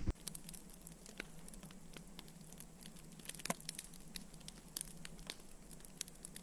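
Wood fire of twigs and sticks crackling in a kamado's firebox: irregular sharp pops and snaps, the strongest about three and a half seconds in, over a faint steady hum.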